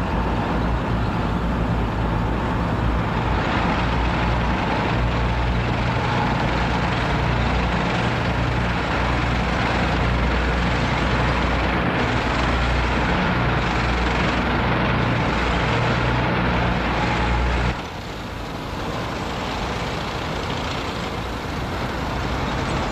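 Heavy military vehicles in a parade column driving past, a steady low engine rumble that drops to a quieter level about 18 seconds in.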